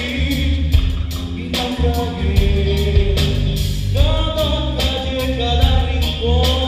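Live band playing a song: a man singing lead into a microphone over electric guitar and a drum kit, with drum strikes on a steady beat.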